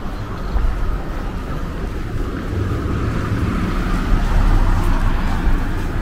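Road traffic on the street alongside: a car's tyre noise swelling to a peak about four to five seconds in and easing off, over a steady low rumble.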